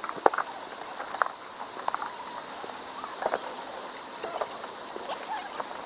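Scattered light clicks and taps of tent poles and footsteps on dry grass as a tent awning is being taken down, the sharpest click just after the start, over a steady high hiss.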